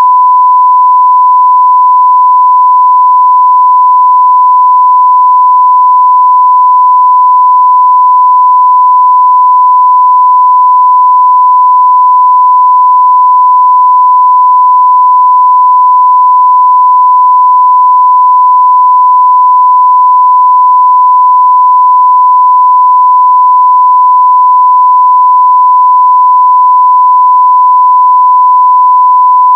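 Censorship bleep: a single steady pure tone at about 1 kHz, loud and unbroken.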